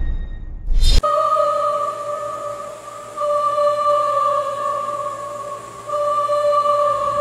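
Background music: a short swell about a second in, then long held, wavering notes doubled an octave apart, in a slow melody.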